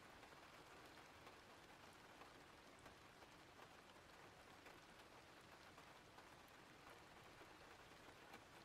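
Faint, steady rain: a soft, even hiss with scattered light drop ticks.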